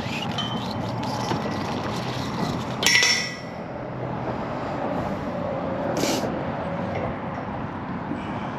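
Steady road traffic noise from passing vehicles, with one sharp metallic clink that rings briefly about three seconds in and a short hiss about six seconds in.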